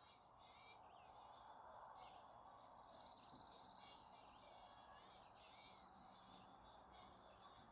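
Near silence with faint birds chirping and whistling, and a short buzzy trill about three seconds in, over a soft steady hiss.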